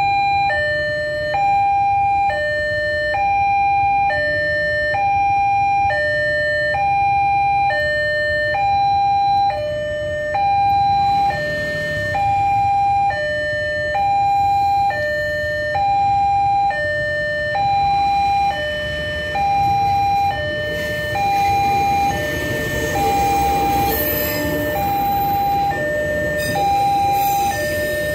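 Electronic level-crossing warning alarm sounding a continuous two-tone chime, switching back and forth between a higher and a lower tone in an even rhythm, warning that a train is approaching. In the last few seconds the rumble of the arriving train builds beneath it.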